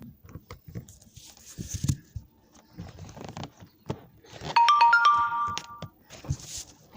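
A short electronic chime of three notes entering one after another, each higher than the last, held together for about a second and a half. Around it are scattered knocks and brief rustling from handling.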